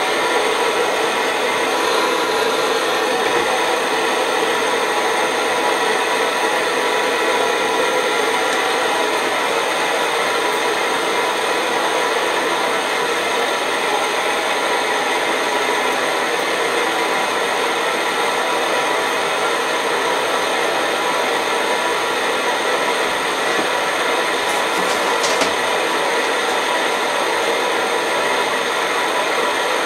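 Optimus 111 paraffin pressure stove's roarer burner running steadily at full pressure under a kettle, a constant, even rushing noise.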